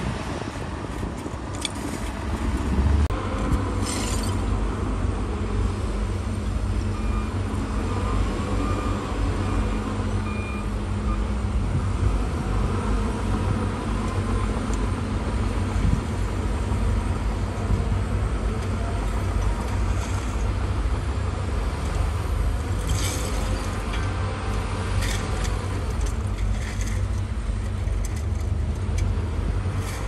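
Heavy diesel earthmoving machinery running steadily under load, with a few short, high-pitched squeals about four seconds in and again near the end.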